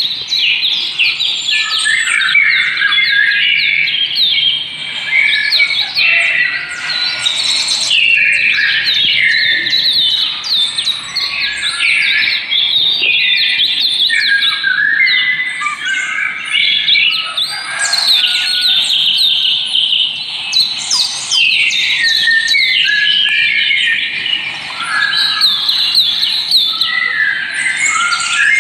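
Many small birds chirping at once in a dense, overlapping chorus of short, quick high chirps that never lets up.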